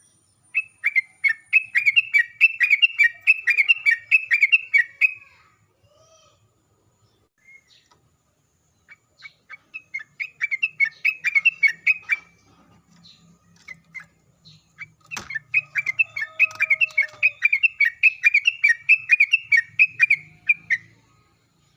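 Sooty-headed bulbul (trucukan) singing in three long bouts of rapid, repeated chattering notes, roughly four a second, with short pauses between bouts. A single sharp click comes just before the third bout.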